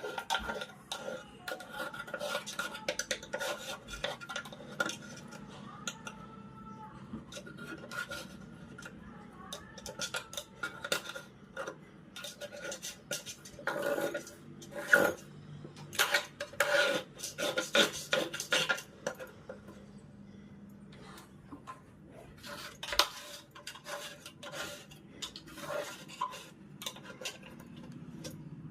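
A metal spoon scraping and knocking along a sliding window track, dislodging dirt, in irregular strokes and clinks, busiest about halfway through.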